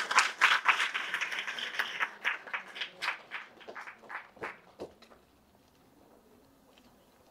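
A small audience applauding, the claps thinning out and dying away about five seconds in.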